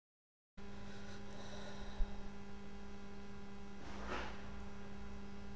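Steady electrical mains hum in the recording, a low tone with a ladder of overtones, cutting in abruptly about half a second in after dead silence. A faint thump comes about two seconds in and a soft rush of noise around four seconds.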